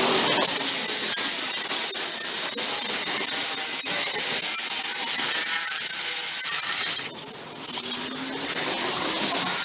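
Reciprocating saw (Sawzall) running steadily while cutting palm fronds. It stops briefly about seven seconds in, then starts and drops again near the end.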